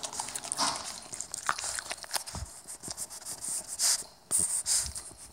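Puppy crunching and chewing a piece of Captain Crunch cereal, with irregular crackly crunches, a few louder ones near the end.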